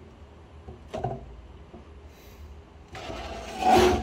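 Parts of a 3D printer's aluminium-profile frame being handled: a light knock about a second in, then a louder sliding scrape near the end.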